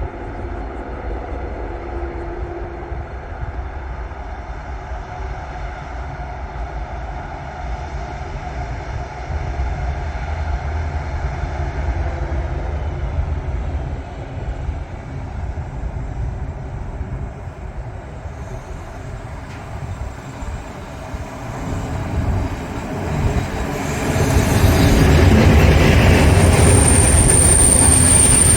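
Passenger train running on the rails with a steady low rumble that swells sharply louder near the end, where a thin high-pitched wheel squeal sets in.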